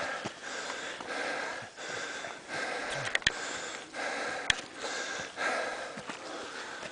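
Heavy, fast breathing of a hiker out of breath from a steep uphill climb, in and out in an even rhythm. A few sharp clicks come near the middle.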